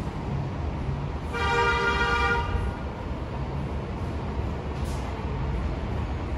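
A vehicle horn sounds one blast of just over a second, starting a little over a second in, over a steady low rumble.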